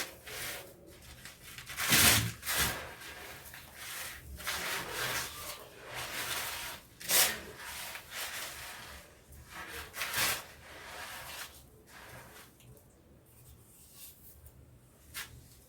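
Dry pure-cement blocks crumbling by hand: irregular gritty crunches and rubbing, with three louder crunches spread through it.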